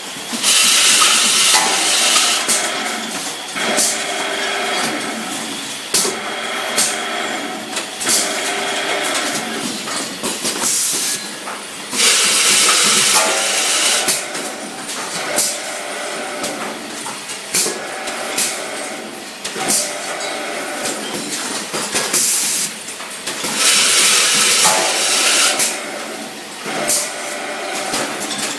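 Automatic drilling and tapping machine running through its cycle: motors hum steadily while pneumatic cylinders clack, and compressed air hisses in a long blast about every eleven seconds.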